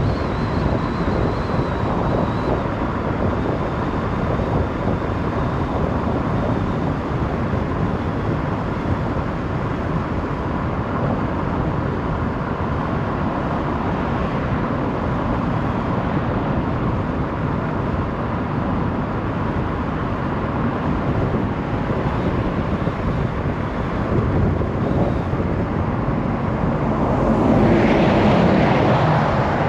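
Steady road and wind noise of a car driving on a motorway, with a louder swell near the end.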